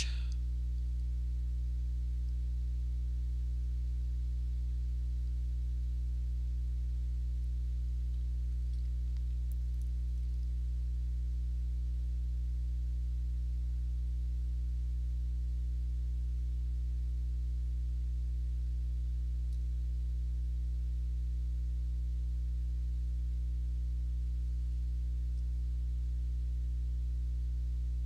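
Steady low electrical hum with a stack of evenly spaced overtones, unchanging throughout.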